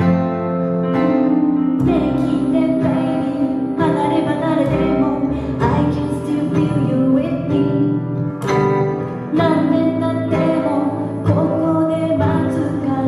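A live acoustic band playing a song: a woman singing over strummed acoustic guitar, with digital piano and upright double bass. Her voice comes in about two seconds in, after a few bars of instrumental intro.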